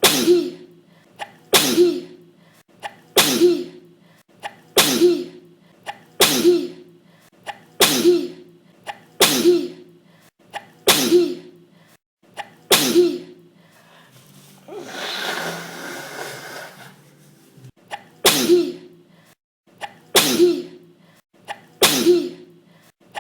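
A person in an uncontrollable fit of sneezing: about a dozen sharp sneezes, roughly one every second and a half, each with a quick intake of breath just before. About two-thirds of the way through the run breaks for a longer, noisier sound of about three seconds before the sneezes resume.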